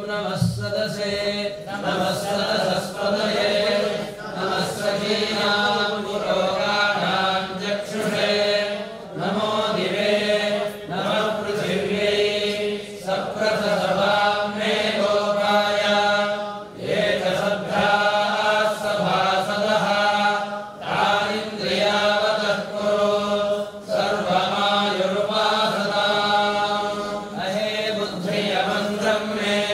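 Brahmin priests chanting Sanskrit mantras as a blessing, in phrases of a few seconds with short pauses between.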